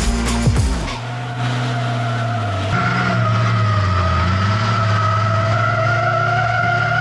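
A racing vehicle's engine running steadily while its tyres squeal in one long, slightly wavering tone as it slides. The sound starts about a second in, as background music cuts off.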